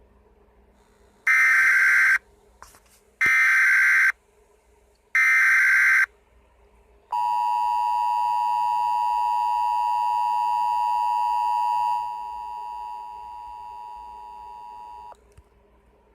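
Emergency Alert System tones: three short, loud bursts of screeching data header about a second apart, then the two-tone attention signal, a steady harsh dual tone lasting about eight seconds that drops in level partway through and cuts off with a click.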